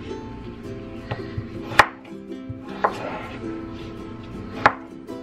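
Chef's knife chopping raw potato into cubes on a wooden cutting board: about four sharp, irregularly spaced knocks of the blade through the potato onto the board, over background music.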